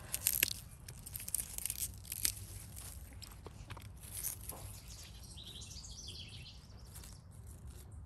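Spent pea vines crackling and tearing as they are pulled by hand off a wire trellis, in a run of short snaps mostly in the first half. Faint high bird chirps come about five to six seconds in.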